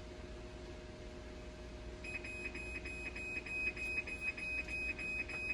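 An electronic alarm starts about two seconds in, a rapid high-pitched beep repeating about four times a second, over a steady low electrical hum.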